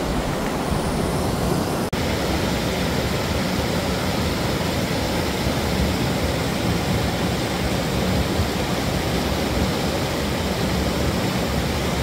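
Steady rush of water from a small river cascade pouring into a rock pool, with a brief dropout about two seconds in.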